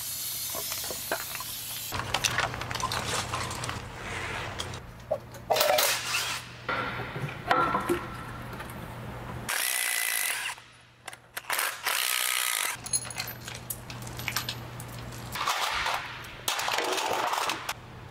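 Cordless power tool spinning bolts out of the timing-chain end of a BMW engine being torn down, with metal parts clinking and knocking. The sound comes in several short stretches cut one after another.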